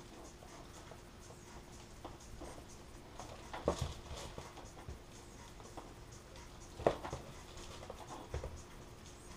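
A small hand-held heat iron rubbing and sliding over laminating film on a foam model-aircraft wing, a soft scratchy rustle. Two sharper knocks come about four seconds in and again about seven seconds in.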